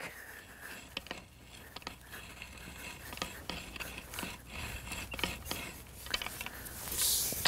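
Hand hoe scraping and chopping through dry, crusted soil in quick, irregular strokes, with many short clicks and scrapes and a louder hissing scrape near the end.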